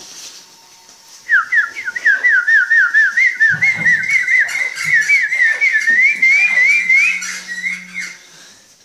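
Battery-powered toy peacock's sound effect: a fast, evenly repeating run of short rising whistle chirps, about four a second, creeping slightly higher in pitch. It starts about a second in and stops near the end.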